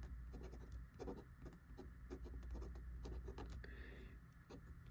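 Fountain pen with a Schmidt steel nib writing on thin Tomoe River paper: a run of short, quick pen strokes.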